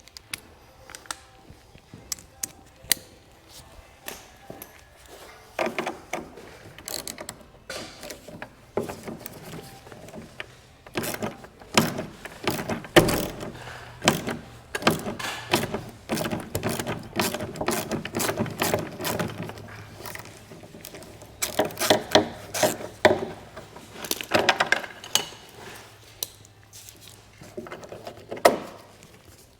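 Irregular clicking and clattering of small metal parts and hardware being handled and sorted, in quick runs of knocks and rattles.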